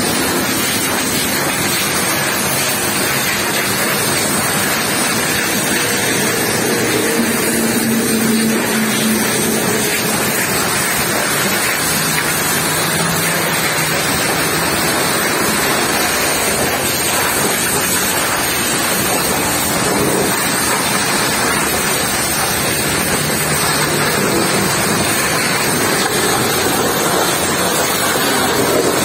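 Pressure washer's high-pressure water jet spraying a truck trailer's fabric curtain side and its wheels: a steady hiss of spray and splashing water.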